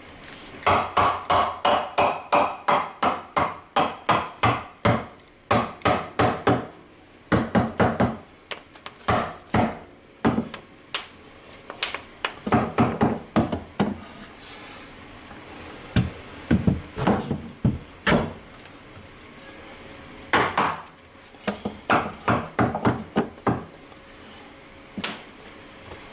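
Hammer tapping wooden support boards into place in a cabinet: a quick run of light strikes, about three a second, then several shorter runs of strikes with pauses between.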